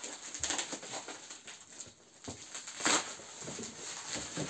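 Cardboard box being torn and cut open: irregular rustling and scraping of the cardboard, with one louder rip about three seconds in.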